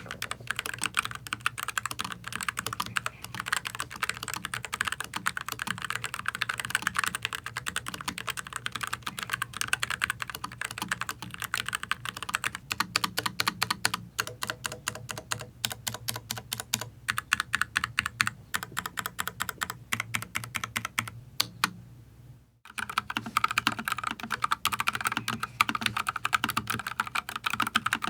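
Continuous fast typing on low-profile mechanical keyboards, the NuPhy Air75 and the AZIO Cascade Slim, in dense rapid key clicks. A brief break comes about 22 seconds in, after which the typing resumes with a slightly different tone as the test turns to the other keyboard.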